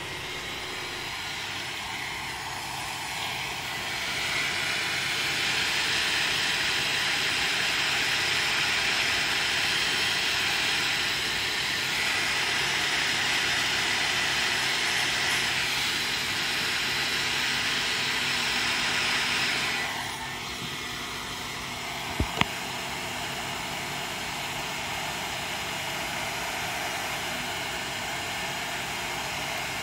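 Handheld hot air gun blowing steadily to shrink heat-shrink tubing on wires. The rushing noise gets louder about four seconds in and drops back about twenty seconds in, with a sharp click a couple of seconds later.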